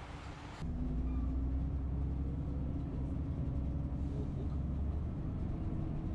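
City bus interior while riding: a steady low engine and road rumble with a constant hum, starting abruptly less than a second in and replacing a softer hiss.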